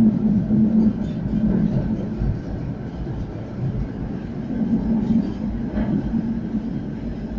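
City tram running, heard from inside the passenger car: a steady low hum from the drive with the rumble of wheels on the rails.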